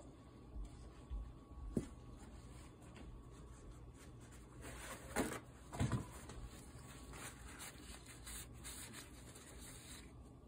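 Scotch-Brite pad scrubbing carbon smear off the Husqvarna 2100cd's OEM piston: a steady, faint, scratchy rubbing, with a few louder knocks about two, five and six seconds in.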